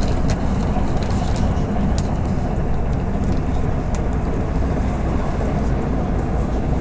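Cabin noise inside a moving MAZ-105 articulated city bus: a steady low engine and road drone with faint scattered rattles and clicks.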